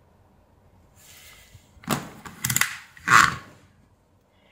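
Handling noise on a workbench: a soft rustle, then three short knocks and scrapes, the last the loudest. They come as the multimeter test probes are put down and the small charger circuit board and its transformer are picked up.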